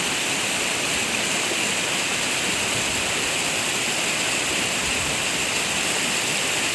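A rain-triggered lahar from Semeru, a flood of volcanic mud, sand and water, rushing swiftly down the riverbed. It makes a loud, steady rushing noise of churning water with no letup.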